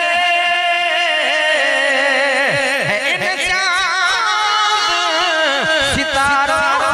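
A man singing a naat, holding long, wavering notes with melismatic ornaments.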